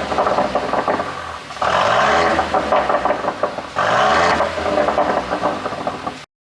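Mercedes-Benz GLC300e's turbocharged four-cylinder engine revved twice, about a second and a half in and again near four seconds. Each rev is followed by crackling and popping from the exhaust as the revs fall, the overrun pops of a pop-and-bang ECU tune. The sound stops abruptly just before the end.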